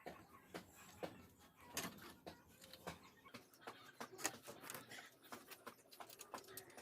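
Faint, irregular clicks and light knocks, a few each second, like small tools and parts being handled.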